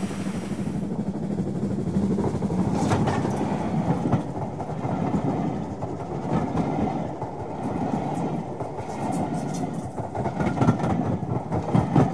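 A train running along the track, its wheels clattering over the rail joints with a steady rumble.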